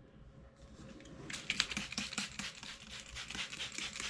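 Rapid patter of small clicks and rustling from hand work on a model railroad layout's ballasted track, starting about a second in and going on steadily.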